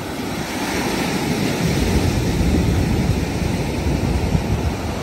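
Sea surf breaking and washing up the shore, swelling to a peak midway and then easing off.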